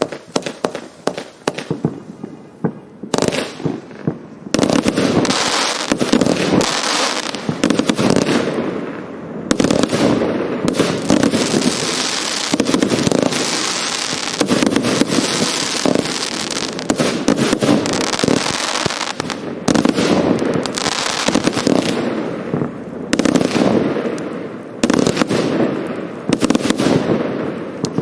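Hallmark "Dreadnought" firework going off: a string of sharp reports for the first few seconds, then, about four seconds in, a dense, continuous barrage of booms and crackle, with a few brief lulls.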